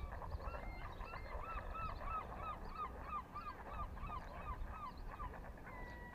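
A waterbird calling, a goose or gull: a long run of short rising-and-falling notes, about three a second, then one long held note near the end that falls away slightly.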